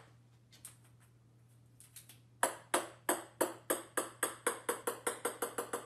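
A ping-pong ball bouncing on a wooden floor: sharp clicks begin about two and a half seconds in and come ever faster and softer as the bounces shorten.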